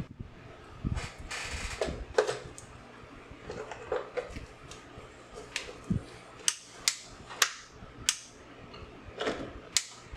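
Handling noises from a 3D-printed plastic band saw and its control box: scattered knocks with a short scraping rustle about a second in, then a run of about five sharp clicks in the second half. The saw's motor is not running.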